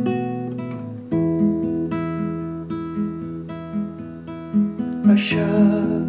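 Nylon-string classical guitar played fingerstyle: picked notes over a repeating low bass line, moving to a new chord about a second in, with a brief scratchy rasp about five seconds in.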